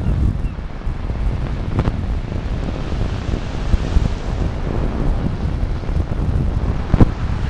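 Wind buffeting the microphone in a steady low rumble, with a faint knock about two seconds in and a sharp, louder knock about seven seconds in.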